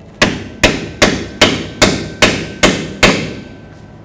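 Hammer tapping the lower shock-mount bolt through the new rear shock's eye and the axle bracket: eight sharp, even metallic strikes about 0.4 s apart, each ringing briefly.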